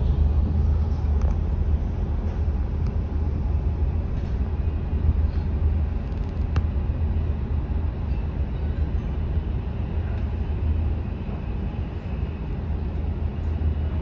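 Steady low rumble of a moving vehicle: road and engine noise.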